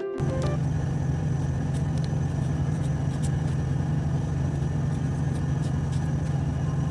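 Semi-truck's diesel engine running steadily, a constant low hum heard from inside the cab.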